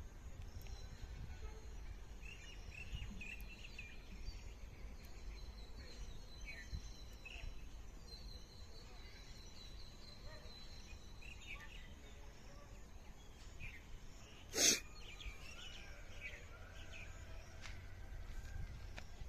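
Rural morning ambience: scattered short bird chirps and a thin, steady high tone over a low rumble. About three-quarters of the way through comes one short, loud burst of noise.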